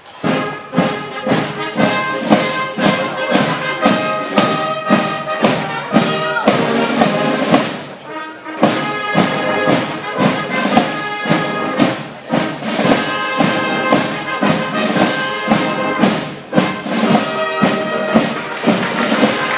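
Brass band playing a march, trumpets and trombones over a steady drum beat, with a short break in the phrase about eight seconds in.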